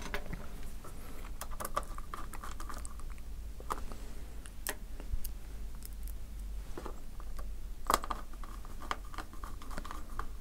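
Scattered small clicks and taps of hands working on a laptop's display lid assembly: the WLAN antenna cable being fitted into the lid, then a small screwdriver set to a screw near the end. The sharpest click comes about eight seconds in.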